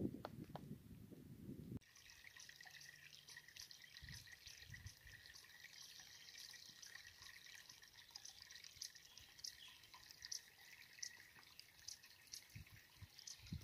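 Faint trickle of a tiny stream running over mud and through grass, a steady light hiss dotted with many small drips. For about the first two seconds, wind rumbles on the microphone and then cuts off abruptly.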